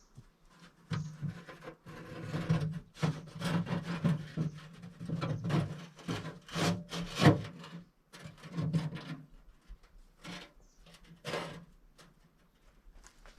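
A run of irregular scraping and rubbing strokes, densest through the middle and thinning out near the end.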